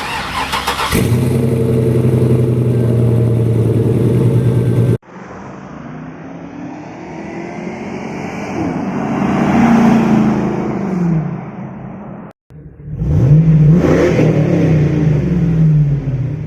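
Hummer H2's rebuilt 6.2-litre LS V8 heard through its exhaust in three separate clips. First it runs at a steady, even drone. Then it swells up and falls back, and finally it revs quickly up and settles down again.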